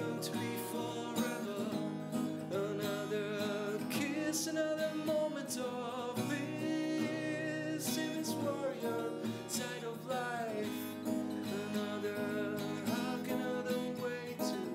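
Music led by strummed acoustic guitar.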